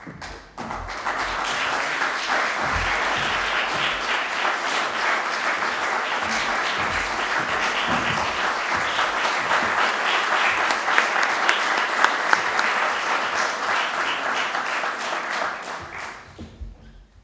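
Audience applauding: dense, steady clapping that starts about half a second in and fades out near the end.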